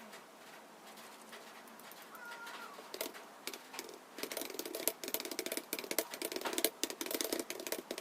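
Computer keyboard typing: after a quiet start, rapid key clicks begin about three seconds in and run fast and dense from about four seconds on.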